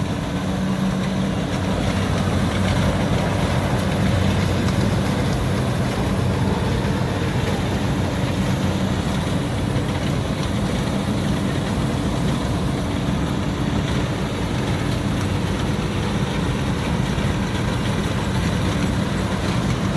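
Kubota DC70 combine harvester running steadily: a low diesel engine hum under a dense, even mechanical noise from the machine.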